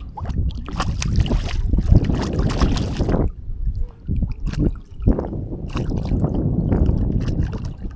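Wind buffeting the microphone, with water splashing and sloshing in irregular bursts around a wading angler.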